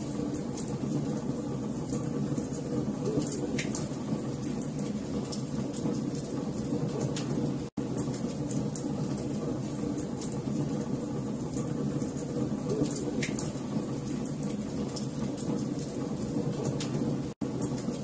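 Wood fire burning: a steady low rush of flames with many sharp crackles and pops from the logs. The sound cuts out for an instant twice, about 8 and 17 seconds in.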